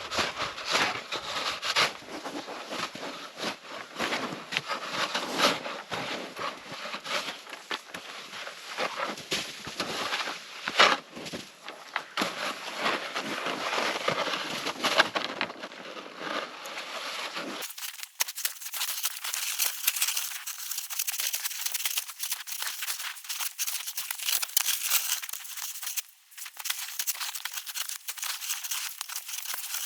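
Snow being dug and scraped, with a dense, irregular crunching and crackling. About two-thirds of the way through, the sound changes abruptly and turns thinner and higher.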